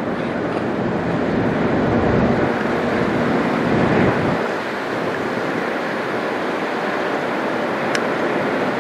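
Airbus A220-300 airliner passing overhead on its landing approach: a steady jet rush that swells about two to four seconds in and then eases a little, with wind buffeting the microphone.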